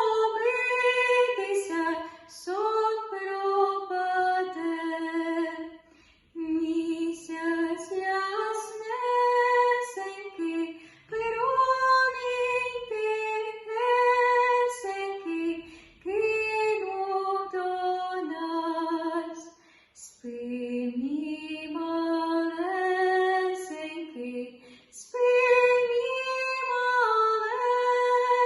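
A teenage girl singing a slow Ukrainian lullaby solo and unaccompanied, in sung phrases a few seconds long with short breaks between them.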